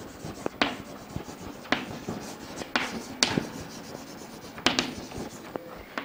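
Chalk writing on a chalkboard: soft scratching strokes broken by irregular sharp taps as the chalk strikes the board.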